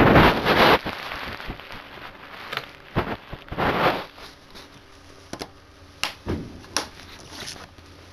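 Handling noise: rustling and scraping with scattered sharp clicks and knocks as a phone and a plastic Blu-ray case are moved about. A loud rustle comes at the start and another about three and a half seconds in.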